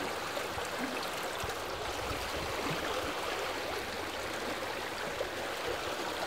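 Steady beach ambience: an even wash of small waves lapping at a lake shore, mixed with the distant hubbub of a crowded swimming beach.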